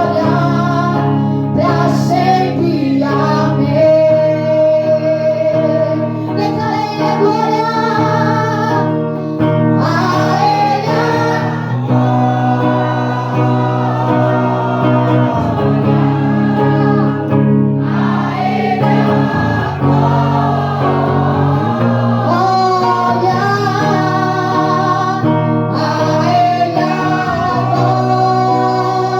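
Gospel worship song with singing over long held chords.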